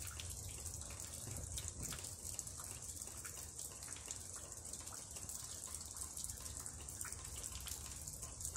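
Steady rain falling, with many small close drips and a running trickle of water.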